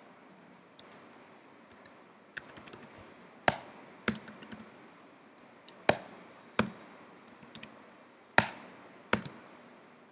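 Typing on a computer keyboard: irregular light key clicks, with a handful of sharper, louder keystrokes from about three seconds in.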